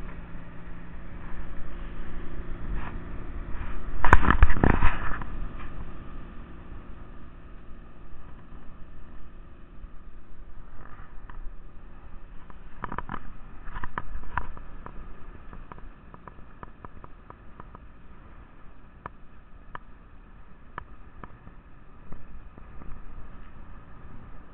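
Wind and water noise aboard a sailing yacht, with a low hum in the first several seconds and a loud rush of noise about four seconds in. Scattered clicks and knocks follow.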